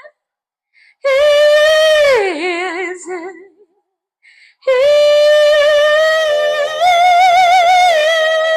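A woman singing "easy" unaccompanied in long held notes with vibrato: a first note that slides down in pitch, a short breath, then a second note held steadily to the end.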